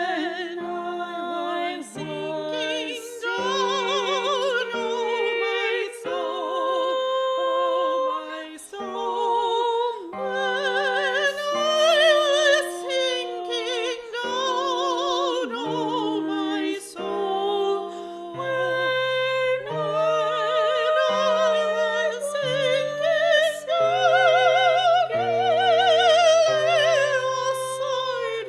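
A singer with a strong vibrato performing a slow hymn-like melody over sustained keyboard accompaniment.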